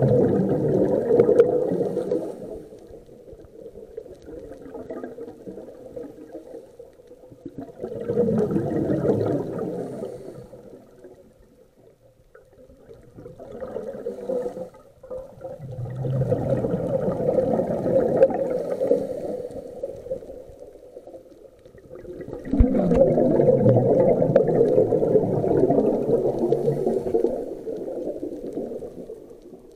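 Scuba regulator exhalation heard underwater: a rush of bubbles bursting out in breaths of a few seconds each, about five times, with quieter inhalations between.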